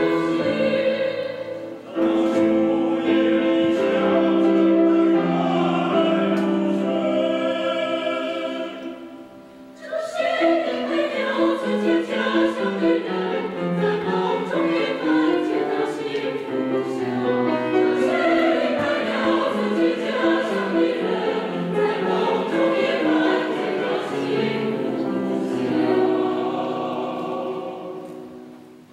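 Mixed choir of women's and men's voices singing in long held phrases, with short breaks between phrases about two and nine seconds in. The singing dies away near the end.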